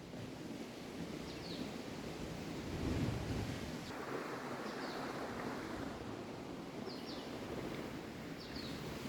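Sea waves washing and surging, with wind. Over it a bird gives a short, high, falling call about every one and a half to two seconds.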